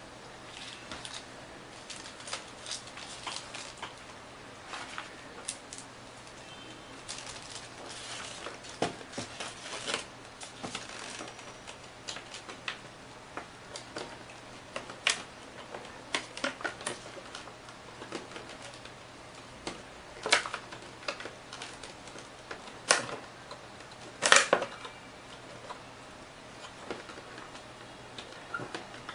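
Unpacking handling noise: irregular clicks, crackles and rustles of plastic parts and wrapping being picked out of a styrofoam packing tray, with a few louder snaps in the last third.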